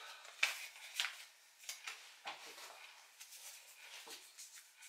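Small folded paper slip being handled and unfolded: faint, quick paper rustles and crinkles, a little over one a second.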